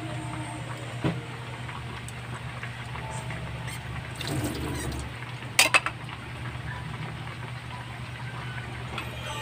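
A pot of vegetable soup at a rolling boil on a gas burner, bubbling steadily over a low, constant hum. Two or three sharp clicks come close together a little past halfway.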